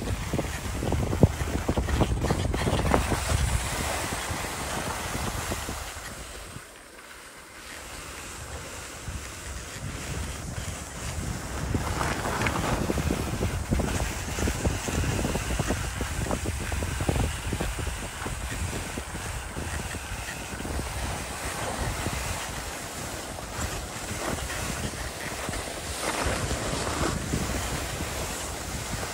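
Skis sliding and scraping over snow, with wind rushing over the microphone at speed. The sound eases for a moment about seven seconds in, then builds again.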